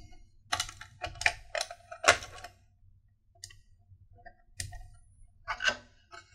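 Clicks and light clattering knocks of an EVGA Z390 Dark motherboard being handled and turned over on a wooden table. There are four quick clatters in the first couple of seconds, then scattered lighter taps and one more clatter near the end.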